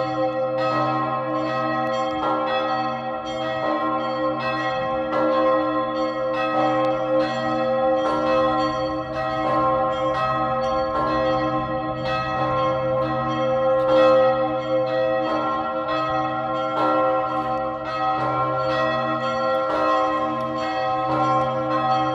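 The Augustin bell, the third-largest bell in the Czech Republic, swinging in the White Tower. Each stroke of its clapper comes about once a second, and its deep, many-toned hum rings on into the next, so the sound never dies away.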